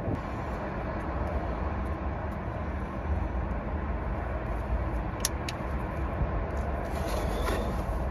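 Steady low background rumble, with two small sharp plastic clicks about five seconds in as the lambda sensor wire is pressed into a clip.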